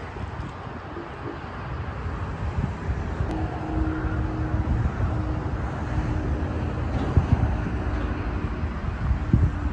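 Low, steady rumble of a train running by, with a faint steady tone that comes in about a third of the way through.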